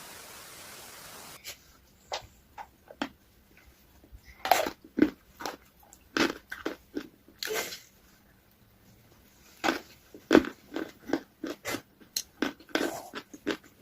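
Close-up biting and crunching into an ice cream cone, with irregular sharp crunches and chewing between them. A steady hiss cuts off about a second and a half in, before the crunching starts.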